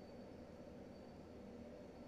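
Near silence: room tone, a faint steady hum with a thin high whine.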